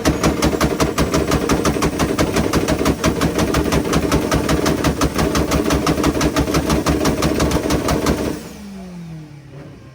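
Two cars, a Mazda RX-7 (FD) and a Mitsubishi, held on their two-step launch limiters together: a fast, even machine-gun of exhaust bangs, about eight a second, as the limiters cut the sparks, shooting flames. The banging cuts off about eight seconds in, and the engines drop back with falling revs.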